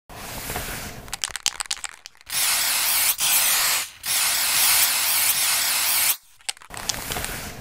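Aerosol spray-paint can: the mixing ball rattles as the can is shaken, then two long bursts of spray hiss of about a second and a half and two seconds, with more rattling and a short hiss near the end.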